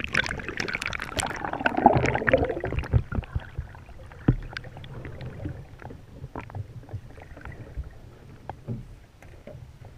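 Water rushing and splashing over a canoe-mounted action camera as it goes under the surface, loudest about two seconds in. Then muffled underwater sound with scattered knocks and clicks.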